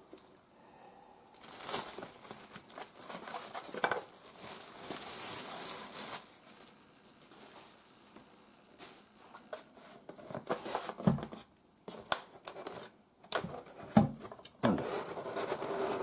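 Cardboard and paper packaging being handled while unpacking a microwave oven: crinkling and rustling, with a few sharp knocks in the second half.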